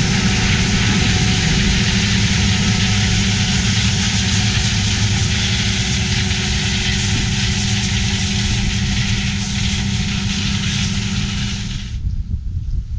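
Large diesel harvest machinery running steadily: a constant engine hum under a loud rushing noise. It cuts off abruptly about twelve seconds in, leaving a lower wind-like rumble.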